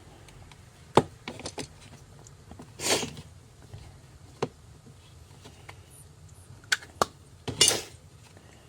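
Hands working on parts: sharp clicks and knocks, with two short scraping pushes, one about three seconds in and a louder one near the end, as greased TPU bushings are pressed into a motor mount bracket.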